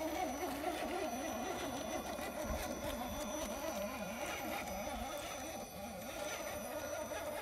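Electric motor and drivetrain of an RC rock crawler whining under load as it climbs steep rock, the pitch rising and falling over and over as the throttle is worked.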